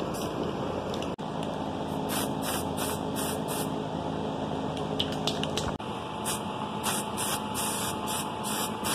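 Aerosol can of Rust-Oleum white primer hissing in repeated short bursts as it is sprayed in passes, over a steady background hum.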